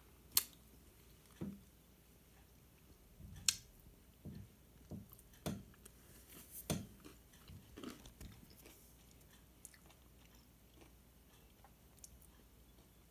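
Irregular soft clicks and taps close to the microphone, about a dozen scattered over several seconds and thinning out toward the end, over faint room tone.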